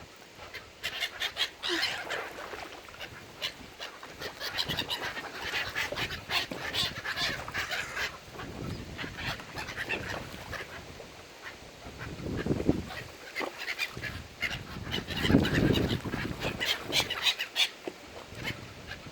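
Mallard ducks calling, with many quick quacks in rapid series. There are two brief low rumbles about twelve and fifteen seconds in.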